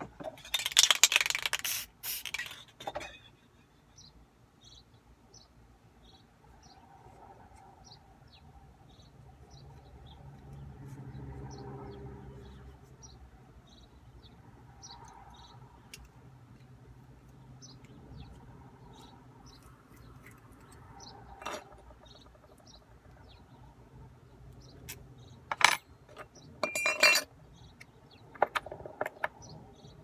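Lock cylinder and its small metal parts handled by hand during a rekey: a loud rustle of handling lasting about two seconds near the start, then sparse clicks and a few sharp metallic clinks near the end. Faint short chirps repeat about once a second throughout.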